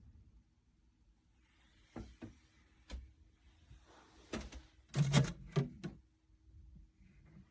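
Knocks and thuds from a mini fridge's door being handled: a few light knocks about two and three seconds in, then a louder cluster of thuds around five seconds in.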